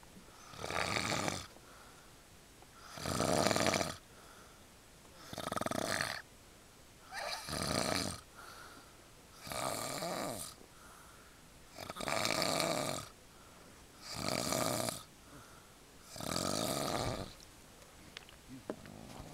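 Snoring: eight regular snores, one about every two seconds, each lasting about a second with quiet gaps between. The snoring stops near the end, leaving a few faint clicks.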